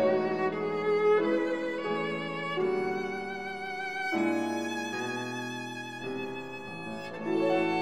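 Background music: a violin playing slow, held notes with vibrato over lower sustained notes.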